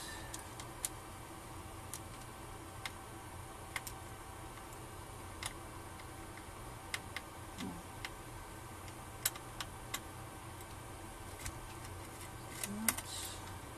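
Small screwdriver working small screws out of a laptop's top case: irregular, sharp clicks and ticks of metal and plastic, spaced out at uneven intervals, over a steady low hum.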